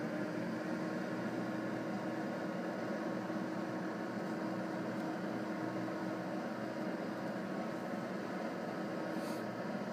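A 12 V computer fan running steadily after a thermostat switched it on for cooling: an even hum with one constant tone over a wash of air noise.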